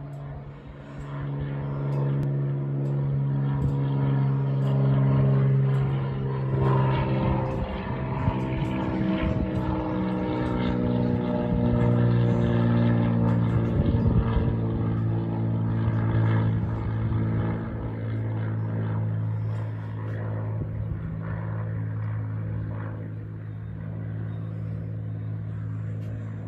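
Cessna 210M Centurion's six-cylinder Continental piston engine and propeller droning as the plane flies overhead. It grows louder over the first few seconds, and its pitch drops as it passes. Afterwards it fades somewhat as it moves away.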